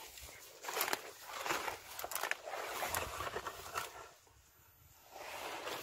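Footsteps crunching and rustling through dry grass and brush, irregular, with a short pause a little past the middle.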